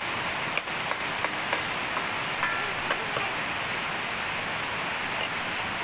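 Shallots, garlic, chilli and anchovies sizzling in hot oil, with irregular sharp pops and spits about every half second that thin out toward the end, over a steady rush of river water.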